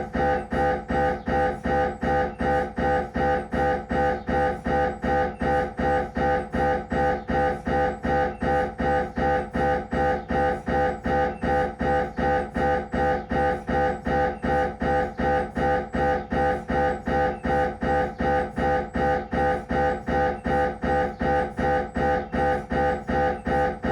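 Siemens Magnetom Avanto MRI scanner's gradient coils buzzing during a head scan sequence: a steady train of pitched pulses, about three a second, repeating without change.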